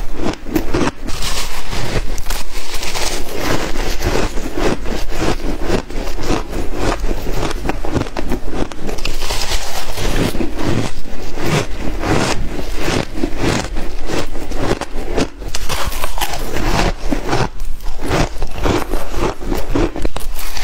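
Biting and chewing of frozen shaved ice, a dense, rapid crunching crackle.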